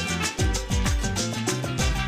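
Background music with a steady, driving beat.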